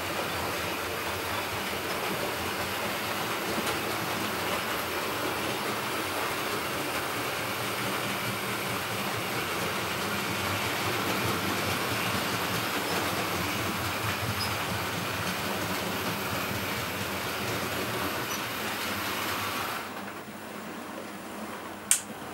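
00 gauge model LNER A4 streamlined locomotive and its coaches running along the layout track: a steady whirring rumble of motor and wheels on rail. It drops away suddenly about twenty seconds in, with one sharp click near the end.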